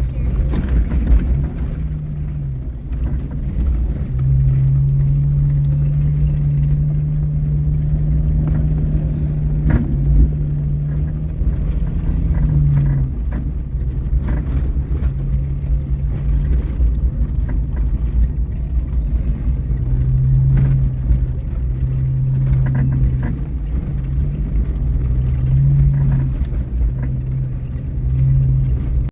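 Off-road vehicle engine running at low speed over rough ground, a steady low hum that eases off and comes back, with a constant rumble and scattered knocks and rattles from the bumps.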